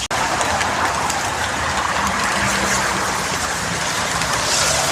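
Steady hiss of heavy rain falling, with faint scattered ticks, after an instant's dropout at the start.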